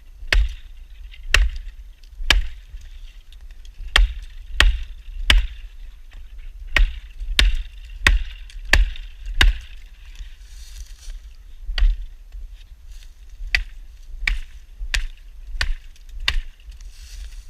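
KLAX multi-tool hatchet head chopping into green wood: a steady series of sharp chops, roughly one to two a second.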